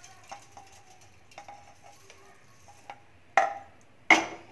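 Roasted cumin and coriander seeds tipped from a pan into a steel mixer-grinder jar, faint light ticks as they fall. Near the end come two sharp metal clanks about a second apart as the empty pan is put back on the gas stove.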